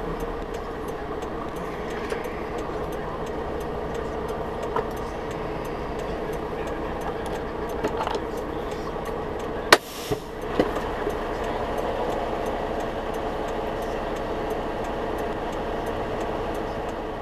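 Semi truck's diesel engine idling, heard from inside the cab, with the turn signal ticking steadily. A sharp knock about ten seconds in, and a smaller one just after.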